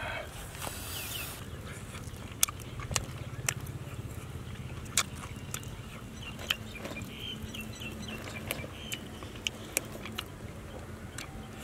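Hands handling grilled rat meat: scattered sharp crackles and clicks, about eight spread irregularly, over a steady background hiss.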